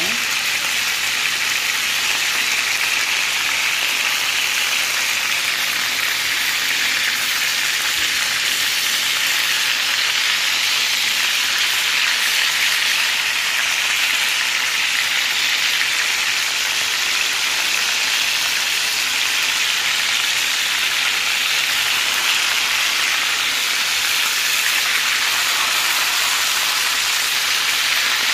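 Seasoned chicken pieces sizzling steadily in hot oil in a frying pan as they brown.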